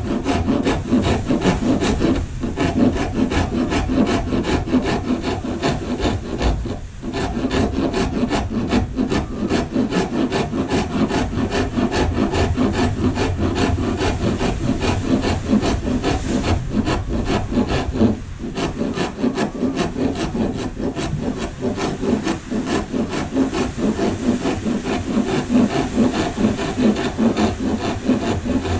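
Small four-in-one hand rasp filing a carved wooden tail, scraping in quick, continuous back-and-forth strokes that break off briefly about 2, 7 and 18 seconds in. It is blending and smoothing the tail after rough shaping.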